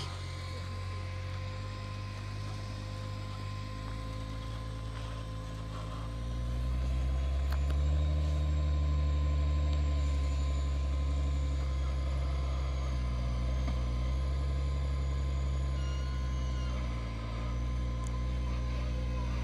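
Off-road trial buggy's engine running under load, revving up about six seconds in and held there, easing briefly near the end.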